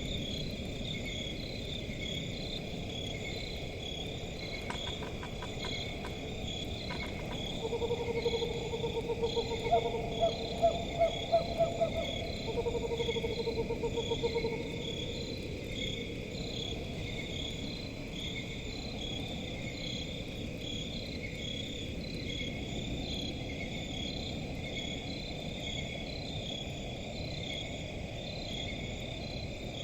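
A steady, evenly pulsing chorus of crickets, with an owl giving a run of rapid trilled hoots from about eight seconds in for some seven seconds.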